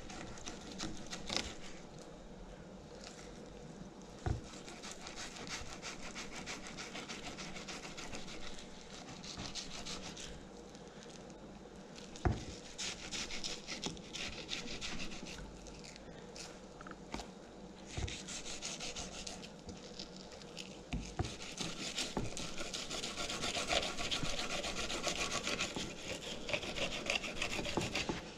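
A filleting knife sawing and scraping through the rib bones of a redfin perch fillet on a wooden cutting board: a faint rasping in runs of short strokes, with a few light knocks.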